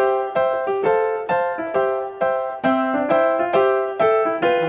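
Background music: a piano-like keyboard plays a steady, even run of struck notes, a little over two a second, each fading before the next.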